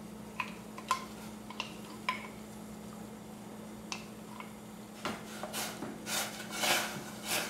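Light clinks of a glass bowl and spoon against a stainless steel pot as washed red lentils are tipped into boiling water, then from about five seconds in a spoon stirring and scraping the lentils in the pot. A steady low hum runs underneath.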